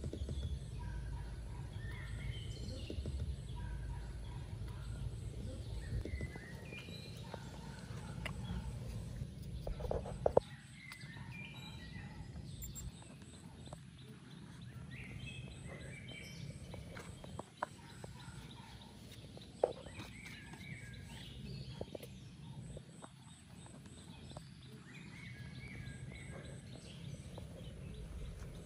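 Farmyard poultry, turkeys among them, calling now and then, with a few sharp knocks scattered through.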